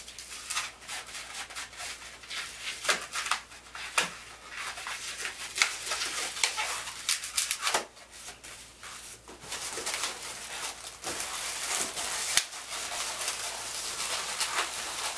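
Latex modelling balloons squeaking and rubbing against each other and the hands as they are twisted. The sound is a rapid string of short squeaks and creaks, thicker near the end as the whole balloon figure is handled.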